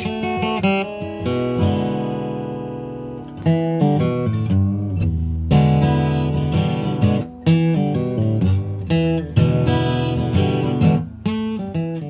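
Background music on acoustic guitar: a run of plucked notes and strummed chords, with one chord left ringing for a couple of seconds near the start.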